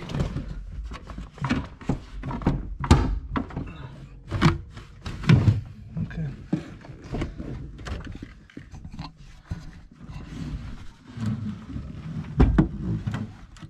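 Irregular knocking, scraping and rattling as the heater box housing is wrestled loose from the firewall of a 1970 Chevelle, with a few heavier thuds about three seconds in, about four and a half seconds in, and near the end.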